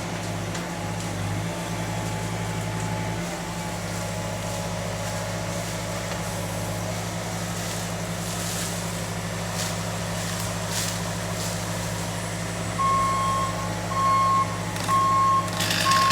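A heavy vehicle's engine runs steadily. About three-quarters of the way in, its reversing alarm starts beeping, about one beep a second, as the machine backs up.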